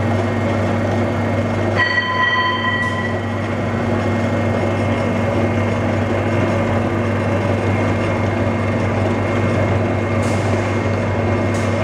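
Homogenizing and emulsifying mixer running: a steady motor hum as the agitator turns the batch in the vessel. A beep of just over a second sounds about two seconds in.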